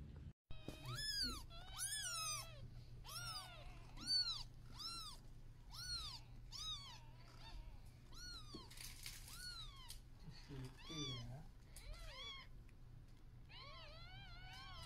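Newborn kittens mewing: a string of high, arching mews about one a second, then a quicker run of shorter cries near the end.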